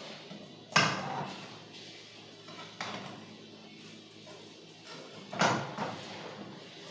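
Three sharp knocks or clatters, the loudest about a second in, another near three seconds and a third a little after five seconds.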